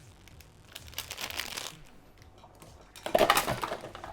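Plastic food packet being handled and crinkled while someone tries to tear it open by hand. There are rustles about a second in and a louder crinkle near the end.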